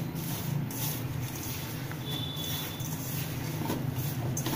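A hand rubbing and mixing dry gram flour with spices in a steel bowl: repeated soft rustling and scraping strokes against the metal, over a steady low hum.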